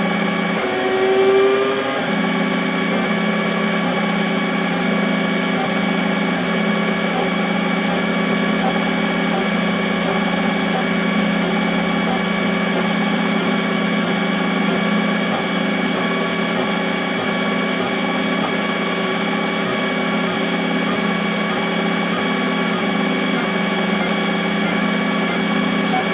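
XYZ da Vinci Mini W+ 3D printer printing, its stepper motors running with a steady hum. About a second in there is a short rising whine.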